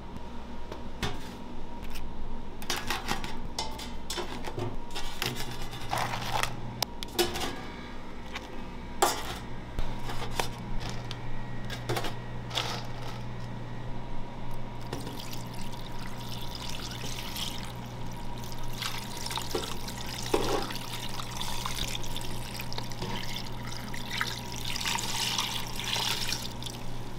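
Raw crab shells clacking against a stainless steel pan as they are laid in one by one, then a thick stream of dark marinade pouring and splashing over them in the second half. A steady low hum runs underneath.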